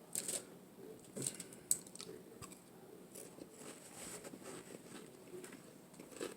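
Close-mic chewing and biting of a tuna melt sandwich: irregular soft clicks and crackles of mouth and bread, a few sharper ones in the first two seconds.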